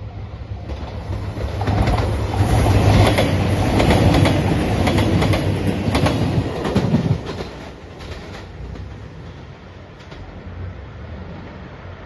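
Nanpu limited express, a diesel train in yellow Anpanman livery, passing close at speed. The sound builds, the wheels clack over the rail joints in quick repeated strikes, and it drops away suddenly about seven seconds in, leaving a steady low hum.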